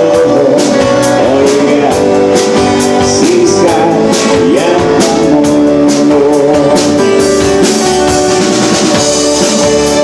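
Live band playing a song: a man singing over strummed acoustic guitar and a drum kit.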